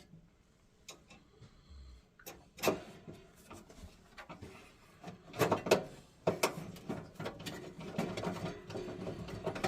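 Hand-handling clatter of small boiler parts and tools: scattered clicks and knocks, getting busier from about halfway through, as electrode leads and clips are worked on.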